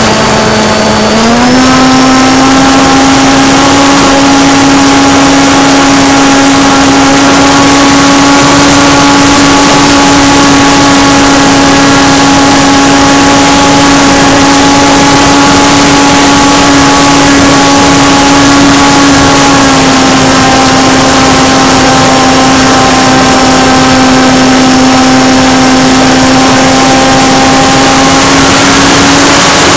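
Electric motor and propeller of a Parkzone F4U Corsair model plane heard from on board in flight: a loud, steady whine over the hiss of rushing air. The pitch steps up a little about a second in and drops slightly about twenty seconds in.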